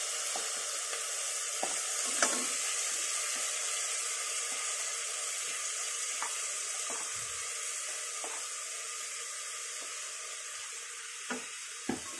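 Oil sizzling steadily in an aluminium pressure cooker as basmati rice is fried with cumin and cinnamon and stirred with a wooden spatula, the sizzle easing off slowly. A few light knocks of the spatula and grains against the pot.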